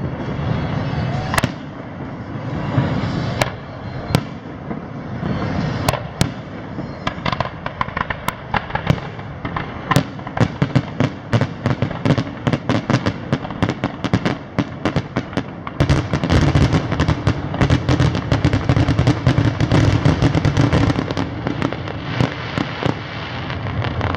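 Aerial fireworks shells bursting overhead: a handful of separate sharp bangs at first, then rapid crackling that thickens into a dense, continuous crackle over the last third.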